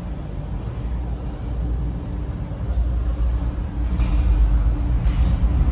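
A vehicle running: a steady low rumble that grows louder near the end.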